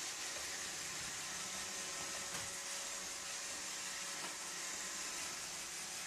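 iRobot Roomba 761 robot vacuum running as it drives over a hardwood floor: a steady motor whir and hiss with faint steady hums underneath, and a couple of light knocks about two and four seconds in.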